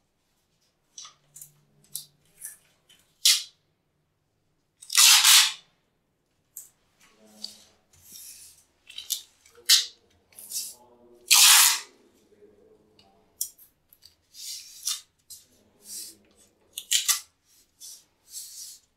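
Masking tape being pulled off the roll and torn into strips, a series of short rips with two longer, louder ones, plus small clicks and rustles as the strips are pressed onto the tiles. The tape holds a concealed mixer's trim plate against the wall while it sets.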